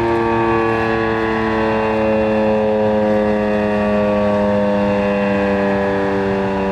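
Model 5 mechanical outdoor warning siren sounding one steady tone whose pitch slowly falls.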